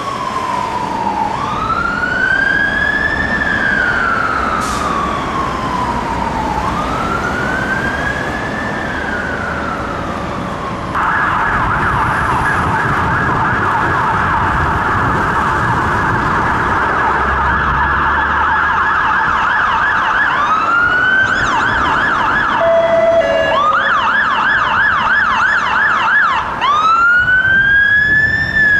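Two UK fire engine sirens over traffic noise. The first, on a London Fire Brigade Scania turntable ladder, is a slow wail that rises and falls about every five seconds. About eleven seconds in, the siren of a 2007 Mercedes-Benz Econic turntable ladder takes over with a fast yelp, then switches back and forth between yelp and wail, with a brief low horn note about two-thirds of the way through.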